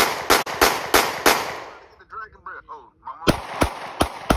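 Handgun fired rapidly, about three shots a second: a string of about five sharp shots, a break of under two seconds with brief voices, then another rapid string of shots starting near the end.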